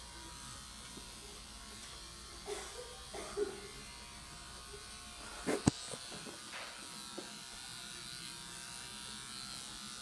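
Electric pet grooming clippers buzzing steadily as they run through a sheepdog's coat, with a sharp knock about halfway through.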